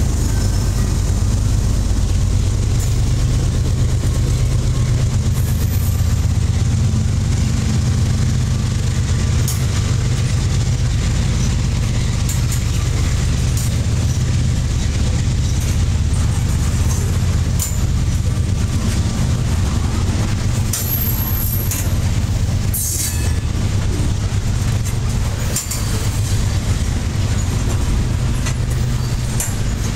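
Covered hopper cars of a CSX corn train rolling past close by: a steady low rumble of wheels on rail, with scattered sharp clicks as the wheels cross rail joints.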